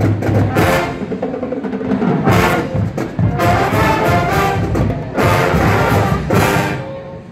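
Marching band of brass and drums playing loud accented chords, several hard hits punching through. The music dies away near the end as the piece closes.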